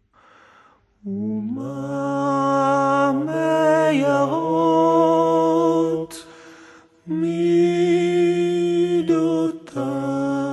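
A man's voice singing long, wordless, chant-like held notes. It breaks for a breath about a second in and pauses briefly around the middle.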